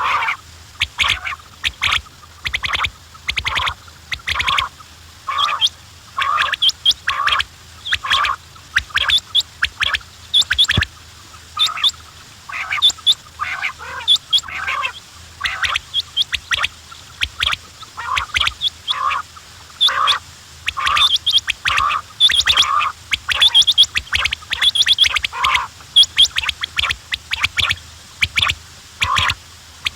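Quails calling: short, sharp calls repeating in quick succession, several a second, over a faint low hum.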